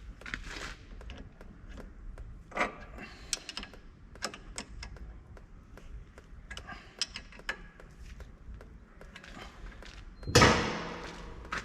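Scattered metallic clicks and taps of hand tools on a braided brake line fitting at the caliper as it is tightened up, with one loud clank that rings on briefly near the end.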